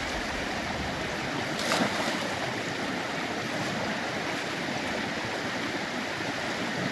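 Steady rush of flowing stream water, with one brief sharp sound a little under two seconds in.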